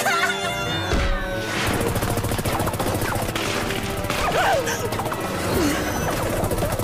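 Rapid cartoon laser-gun fire over action score music. The shots come as a fast, even volley starting a couple of seconds in.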